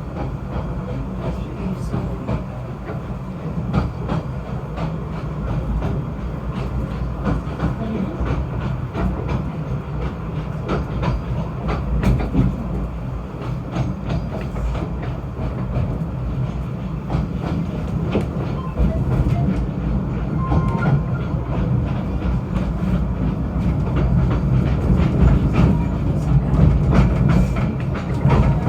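Snowdon Mountain Railway rack train running: a steady low rumble with frequent clicks and clacks from wheels and track, growing a little louder near the end.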